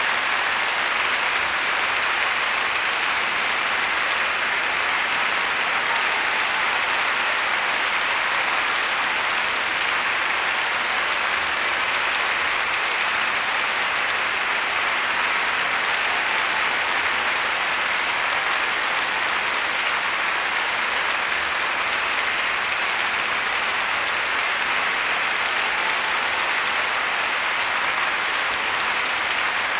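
Large concert-hall audience applauding, a dense, steady clapping that neither builds nor fades.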